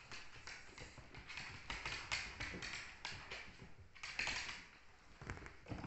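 Light, scattered clicks and taps of a Cavoodle puppy's claws on a wooden floor as it is handled, with a brief rustle about four seconds in.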